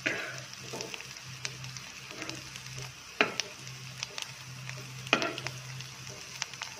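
Potato cutlets sizzling in shallow oil on a flat griddle, with a spatula scraping across the pan surface a few times as cutlets are lifted: once at the start, again about three seconds in and again about five seconds in.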